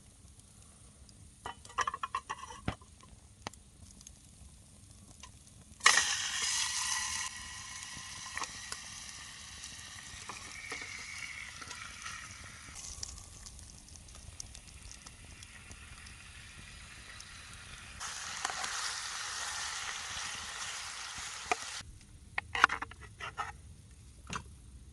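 Food sizzling in a hot pan over a campfire. The sizzle starts suddenly and loudly about six seconds in, as food goes into the pan, then settles to a steady hiss. It swells again for a few seconds later on and cuts off abruptly, with light knocks and clicks of utensils before and after.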